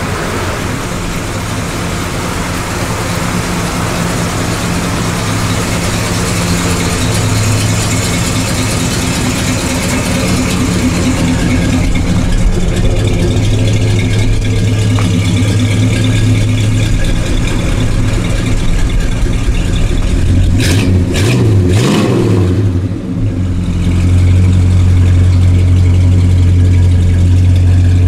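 The 325 hp 396 cubic-inch big-block V8 of a 1968 Chevrolet Impala SS idling steadily, with a short uneven moment and a quick blip of revs about twenty seconds in, after which the low idle runs louder.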